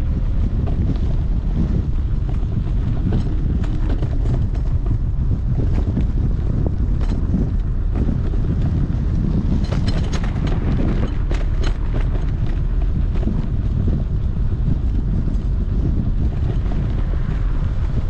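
Wind buffeting the microphone of a GoPro Hero9 on the handlebars of a moving Apollo Explore electric scooter: a loud, steady low rumble. Scattered sharp clicks and rattles run through it, most of them about ten to twelve seconds in.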